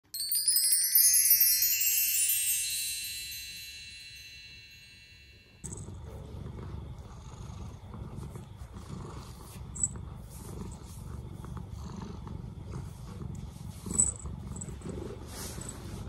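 A bright run of chime tones rings out and fades away over the first five seconds or so. Then a domestic tabby cat purring steadily while being held and stroked, with a sharp tick about ten seconds in and another, louder one near the end.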